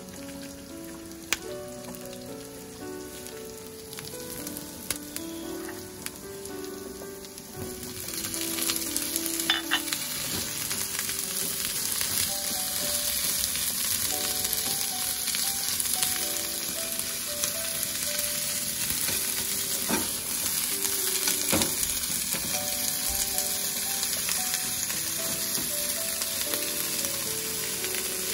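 Food frying in a pan: a steady sizzle that gets much louder about eight seconds in, with a few sharp clicks of a utensil against the pan. Light background music with a simple melody plays throughout.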